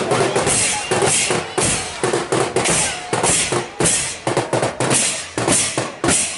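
Drums beating a quick, uneven rhythm of sharp strokes.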